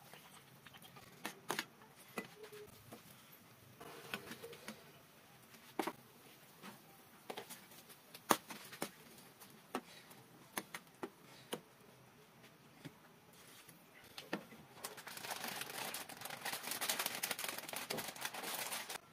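Cooking at a pan of simmering chicken broth: scattered taps and clicks of a metal ladle and pan work, then, about fifteen seconds in, a few seconds of dense crackling that cuts off suddenly.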